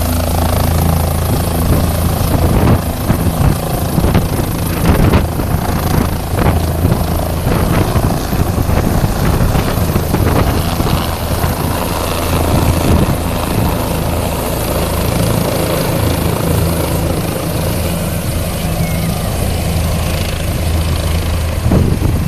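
Light helicopter lifting off and flying away: a loud, steady rotor and engine drone with a low hum, broken by irregular thumps and gusts.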